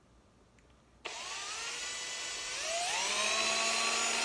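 Cordless drill with a 5/16-inch bit starting suddenly about a second in and drilling through a plastic bottle cap. Its motor whine rises in pitch as it speeds up, then rises again and gets louder near the end.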